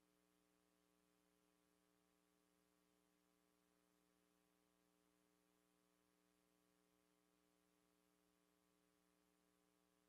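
Near silence, with only a very faint steady hum.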